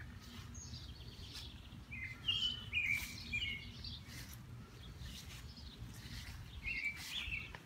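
Small birds chirping in short, quick phrases, one cluster about two seconds in and another near the end, over a steady low outdoor background noise.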